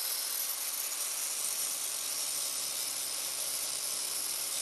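Angle grinder grinding the end of a metal piece clamped in a vise, shaping it into a hook, with a steady, high grinding noise.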